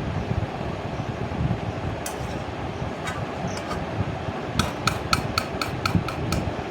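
Metal spatula clinking against the kadai while the curry masala is stirred and fried down: a few scattered knocks, then near the end a quick run of about eight ringing taps, about four a second. A steady low background hum runs underneath.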